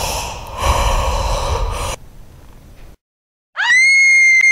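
About two seconds of loud, rough, breathy noise, then after a brief silence a shrill, very high-pitched scream sound effect that swoops up at its start and is held steady to the end.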